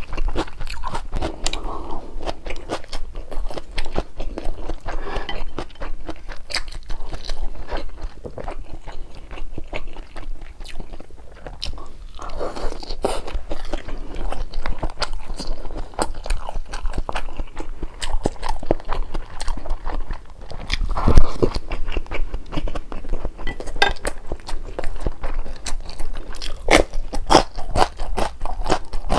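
Close-miked eating: chewing and biting with many small crunchy clicks, and one louder thump about two-thirds of the way through.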